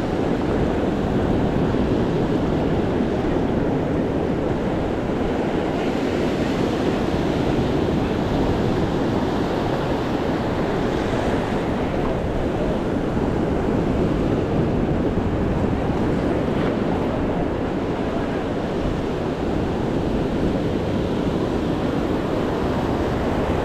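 Ocean surf washing in, with wind blowing across the microphone: a steady rushing noise with no clear breaks.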